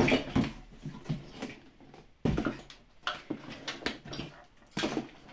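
Handling noises as a car radio head unit with its wiring harness is lifted and set on its cardboard box: several knocks and scrapes, the sharpest right at the start, a little over two seconds in and near the end.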